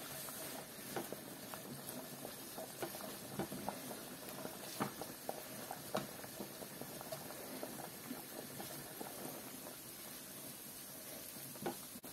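Large pot of sauerkraut soup boiling, a faint steady bubbling hiss with scattered soft pops.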